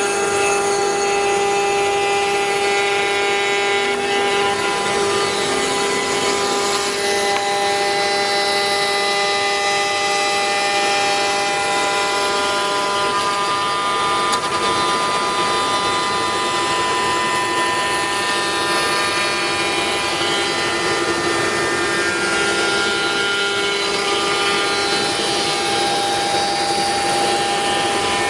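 Five-axis CNC router's spindle whining steadily as a small end mill trims the edge of a thin black moulded part, over a constant cutting hiss.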